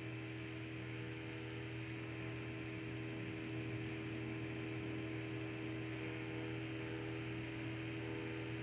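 Steady electrical mains hum, several held tones at once over a faint hiss, unchanging throughout.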